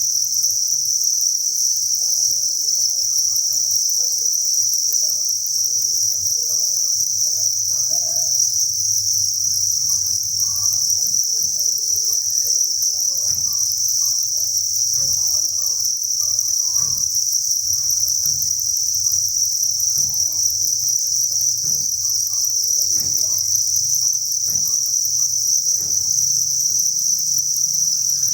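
Dense chorus of many crickets chirping together at a cricket breeding farm, a steady high-pitched trill that never lets up.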